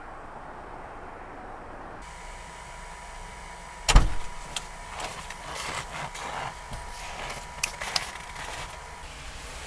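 A single loud, deep thump about four seconds in, followed by scattered small clicks and rustling over a faint steady hum.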